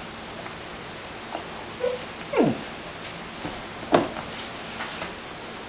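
Barking toy ball giving short dog-like barks as the dog paws at it: a falling yelp about two and a half seconds in and a sharper bark about four seconds in, followed by a brief high jingle.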